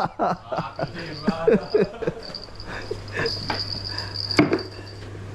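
An insect chirring in one high, steady tone with small breaks, over a low steady hum, with a sharp click about four seconds in.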